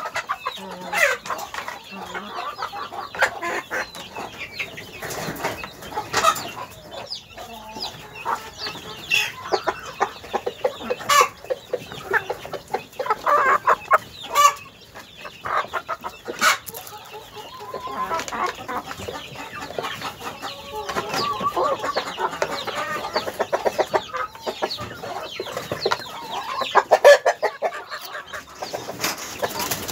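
A flock of hens clucking steadily, with occasional sharp taps.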